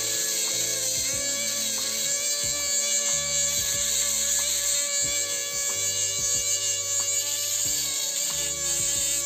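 Background music over the steady high whine of a small battery-powered BG W-05 electric mini-grinder running with its bit against stone.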